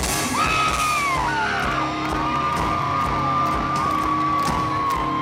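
Live rock band playing loud in a large hall, with electric guitar, drums and cymbal hits, and high drawn-out cries and whoops from the audience that overlap and fall away at their ends.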